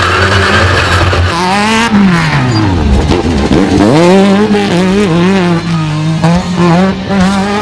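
Off-road race buggy engine at high revs; about a second and a half in the revs drop steeply, then climb back and rise and fall with the throttle.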